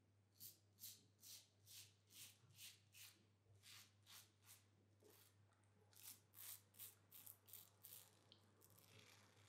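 Merkur Progress 500 adjustable double-edge safety razor scraping through lather and stubble in short strokes, about two to three a second, with a brief pause about halfway.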